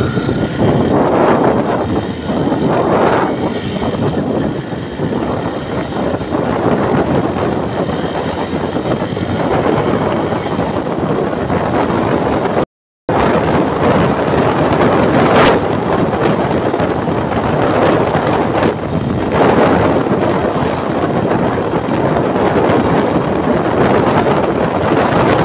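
Wind rushing over the microphone on a moving motorcycle, with engine and road noise underneath. The sound cuts out completely for a moment about halfway through.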